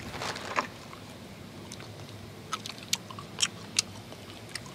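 A person chewing a small piece of gum with the mouth, making a handful of short, separate clicks and smacks over a steady background hiss.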